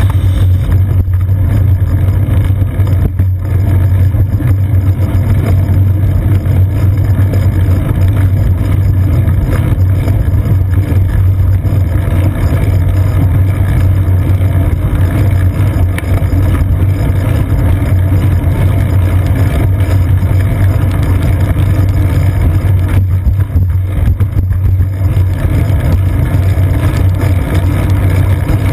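Steady, loud low rumble of wind and road vibration on a seat-post-mounted GoPro Hero 2 in its housing as the bicycle rides along.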